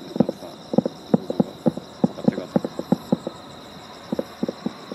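An irregular run of short, hollow clacks, about four a second, pausing briefly just past the middle. A faint steady high tone runs underneath.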